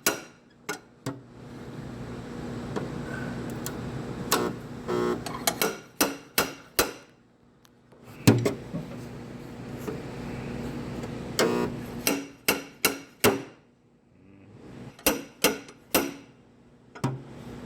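Hammer blows on the sheet metal of a damaged car quarter panel during dent repair: short runs of a few quick metallic taps with pauses between them, over a steady hum.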